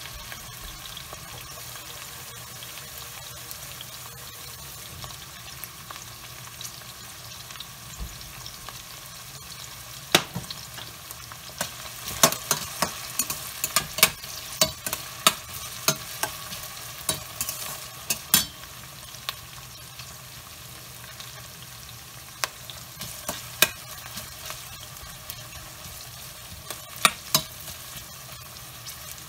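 Chopped onions sizzling steadily in a stainless steel pot as they fry toward light brown. A metal slotted spoon clicks and scrapes against the pot in runs of stirring, mostly in the middle and again near the end.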